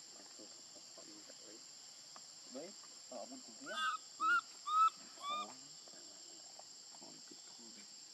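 Steady high drone of forest insects, with four short rising-and-falling calls in quick succession about four seconds in, the loudest sounds here.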